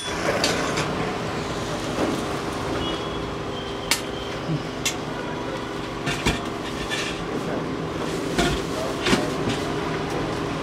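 Street-food stall ambience: a steady background din with scattered sharp metal clinks and knocks of cooking utensils at the griddles.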